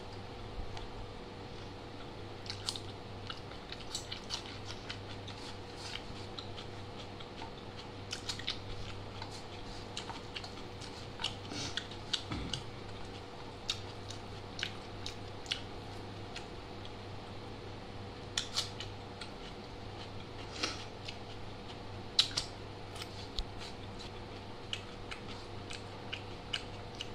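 A person chewing a mouthful of rice and chicken: irregular wet clicks and smacks from the mouth, over a steady low hum.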